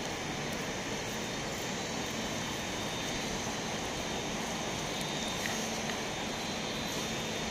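Steady outdoor city ambience: an even rushing hiss with no distinct events.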